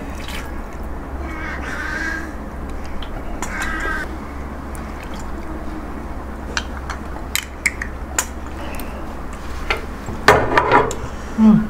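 Eating at the table: scattered short clicks and clinks of utensils and chewing over a steady low hum, with a couple of brief pitched vocal-like noises and a louder burst of sound about ten seconds in.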